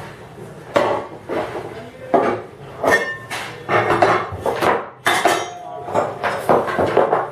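Metal parts being handled, knocking and clinking together in a string of irregular sharp knocks, some of them ringing briefly.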